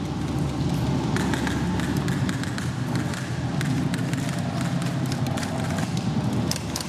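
Airsoft gunfire: scattered sharp clicks and taps over a steady low rumble, then a fast string of shots starting near the end.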